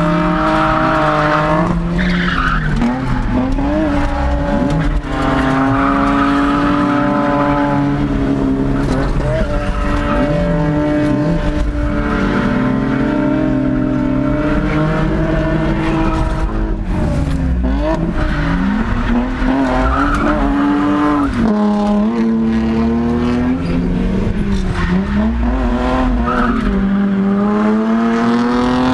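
Toyota Tacoma's stock 2RZ four-cylinder engine, heard from inside the cab, revving hard and dropping back again and again as the truck drifts, with tyres skidding and squealing.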